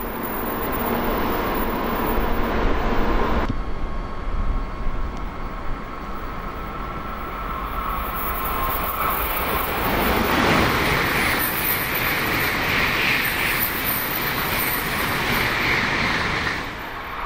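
Tokaido Shinkansen N700-series train approaching and running past at speed: a rush of wheel and air noise that builds from about ten seconds in and cuts off abruptly near the end. Before that, another Shinkansen's running noise fades as it pulls away, broken by a sudden change about three and a half seconds in.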